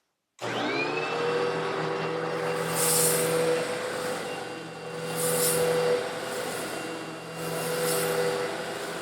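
Eureka vacuum cleaner switched on, its motor whine rising to speed within a second and then running steadily as it draws up coarse stone granules. Three times a surge of high hiss rises and falls over the motor.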